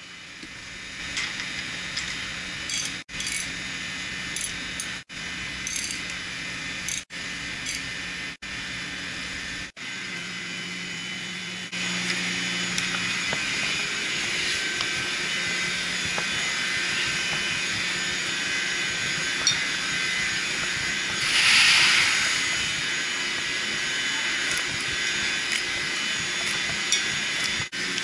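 Ratchet wrench clicking and metal clinking as the bolts on a pump's strainer cover are tightened. About twelve seconds in, a steadier hum and hiss take over, with a brief louder hiss a little past the middle.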